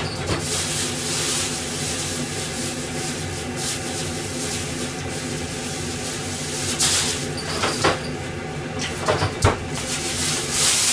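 Steady hum and hiss of pans simmering on a gas stove. A few short knocks and bursts of hiss come in the second half.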